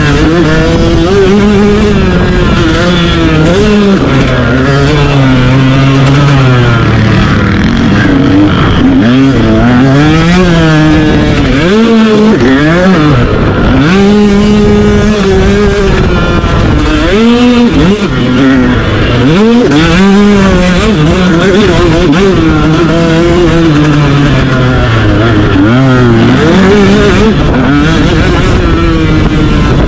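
Motocross bike engine heard up close from the bike itself, its pitch rising and falling over and over as the rider works the throttle and shifts through the track's jumps and turns. The throttle is chopped sharply twice, about twelve and eighteen seconds in.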